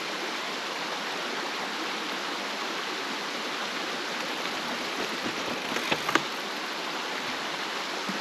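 Creek water rushing steadily, with two sharp clicks about six seconds in.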